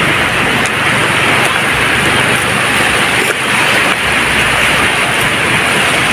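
Waves breaking and washing on a beach, a steady wash of surf noise.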